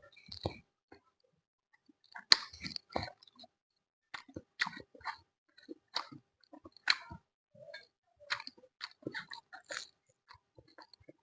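A person chewing and biting crisp food close to the microphone, sharp crunches coming irregularly about once a second between softer wet mouth sounds.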